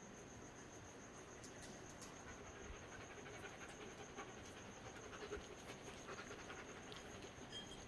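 Faint rustling and soft crinkles of a gauze roll being wrapped around an arm for a pressure bandage, over a steady high-pitched pulsing trill.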